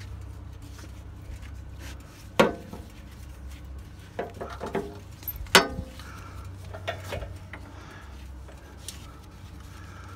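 Metal hook of a tie-down strap clinking and knocking against the motorcycle's chrome engine guard and fittings as the strap is threaded through an attach point. Two sharp clanks, about two and a half and five and a half seconds in, with lighter clicks between and around seven seconds, over a steady low hum.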